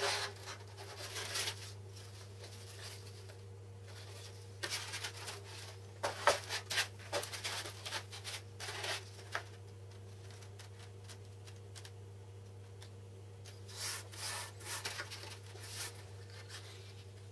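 Hands handling and sliding a wooden saw-guide board on a foam sheet: scattered rubbing and rustling with a few light knocks, in three short spells, over a steady low hum.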